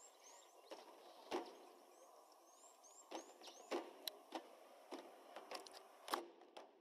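Faint outdoor ambience: small birds giving short, falling high chirps, with scattered sharp clicks and knocks, the loudest about a second in and again near the end.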